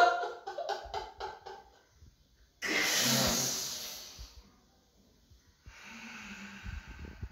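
A man breathing hard in acted distress: one long, loud breath about two and a half seconds in, then a quieter breath with a low groan in it near the end.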